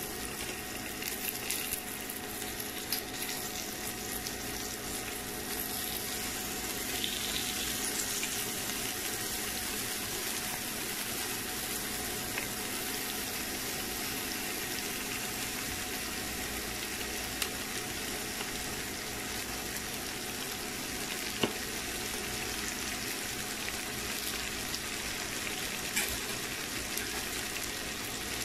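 Butter, oil and garlic sizzling steadily in a non-stick frying pan as whole shell-on shrimp are laid in with metal tongs, with a few light clicks of the tongs against the pan.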